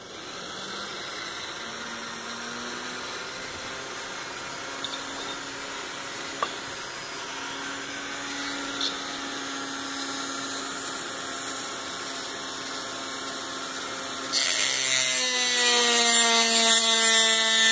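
Dremel rotary tool on a flex-shaft attachment spinning up and running with a steady whine. About 14 seconds in, its cutter bit bites into a chainsaw cylinder's port. The sound turns to a much louder, harsher grinding whine that drops slightly in pitch as the bit cuts metal.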